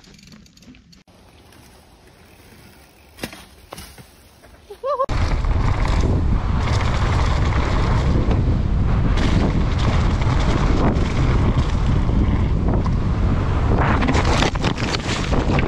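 A few quiet seconds with a couple of light knocks, then from about five seconds in a loud, steady rush of wind on an action camera's microphone. The mountain bike rattles and its tyres rumble over the rough dirt trail during a fast descent.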